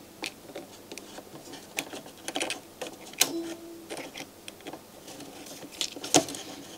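Scattered small clicks and light rattles of plastic and metal parts as the loading mechanism of a Sony MDS-JE520 MiniDisc deck is handled and worked by hand, with the loudest click about three seconds in.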